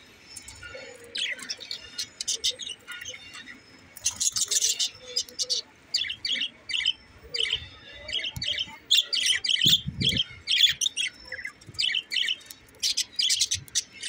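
A flock of budgerigars chattering: rapid, overlapping short chirps and squawks with no let-up, a louder rush of calls about four seconds in, and a dull low thump about ten seconds in.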